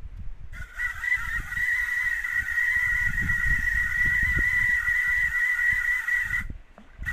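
Fishing reel drag buzzing steadily for about six seconds as a big kelabau pulls line off the spool, then stopping suddenly.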